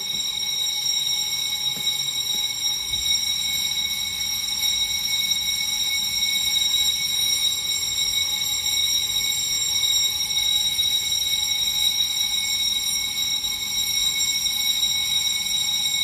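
Fire alarm sounding one continuous, unbroken high-pitched tone, an alarm raised during testing of the building's fire detection system.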